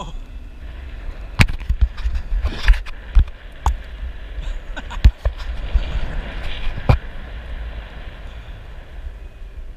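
Steady low rumble with irregular sharp knocks, picked up by a GoPro action camera's own microphone.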